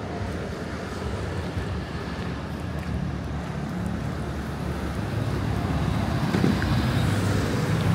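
Steady low rumble of outdoor background noise with wind buffeting the microphone, growing slightly louder toward the end.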